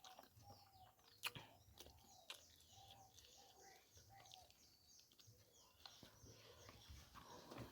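Faint birdsong: short repeated chirps and quick high falling calls, with a few sharp clicks.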